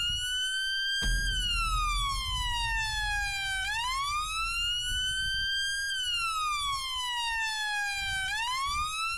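A wailing siren, its pitch rising and falling slowly in about two full sweeps, over a low rumble that comes in about a second in.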